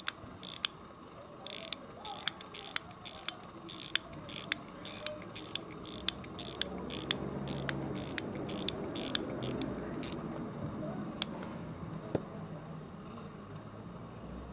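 A 17-jewel Illinois pocket watch being wound at the crown: the click pawl snaps over the ratchet wheel in a string of sharp clicks, about two a second, which stop near the end.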